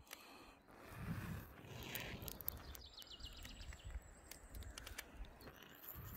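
Wind rumbling on the microphone, with a small bird singing in the background: a quick run of high chirps about two and a half seconds in.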